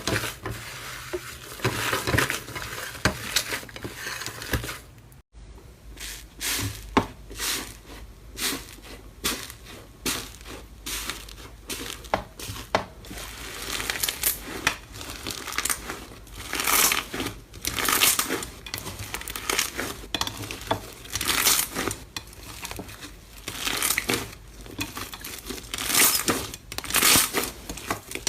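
Slime being squeezed and worked, giving a dense run of crackles and pops, with a brief break about five seconds in.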